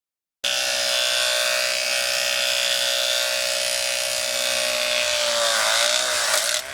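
Small electric motor of a radio-controlled model wood chipper running at a steady high whine. Its pitch sags briefly and recovers near the end. It starts and cuts off abruptly.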